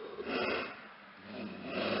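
Lynx vocalizing in two short, breathy, snort-like bursts: one about half a second in and another near the end.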